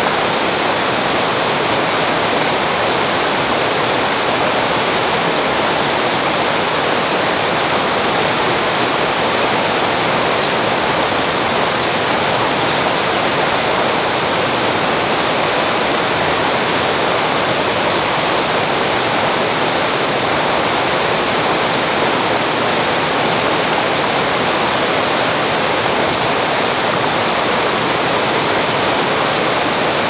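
Forest stream rushing over rocks in a small rapid, a steady, even rush of water.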